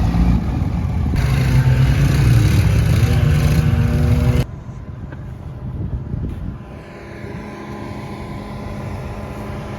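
A truck engine working hard, loud and fairly steady in pitch, typical of a truck pulling a stuck vehicle out. About four and a half seconds in it cuts off suddenly, giving way to a quieter, steady engine drone with a constant hum.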